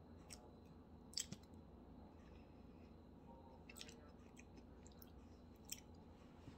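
Faint wet mouth clicks and smacks from chewing a mouthful of soft ice cream: a few short, sharp clicks, the loudest about a second in, over near silence.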